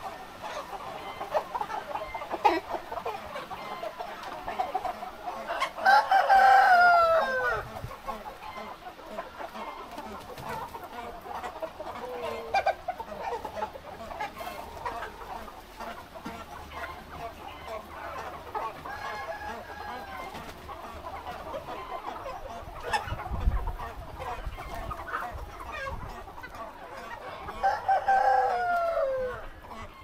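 A large flock of chickens clucking and chattering throughout. A rooster crows twice, once about six seconds in and once near the end, each crow falling in pitch at its close; the crows are the loudest sounds.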